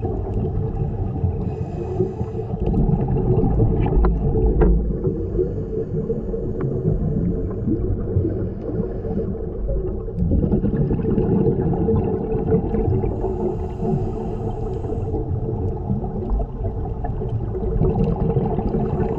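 Underwater drone of a boat's engine running steadily, with occasional hissing bursts of a scuba diver's exhaled regulator bubbles.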